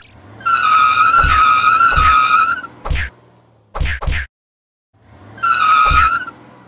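Dubbed tire-squeal sound effects: a long screech of about two seconds, then a shorter one near the end. Between and under them come a few short whooshes and thuds, with a moment of dead silence between them.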